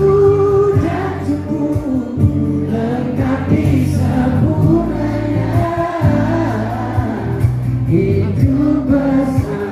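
Live pop song performed on stage, with many voices of the audience singing along.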